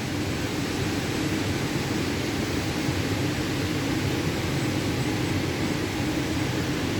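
A CNC prepreg cutting machine running, giving a steady mechanical hum and rush with no changes.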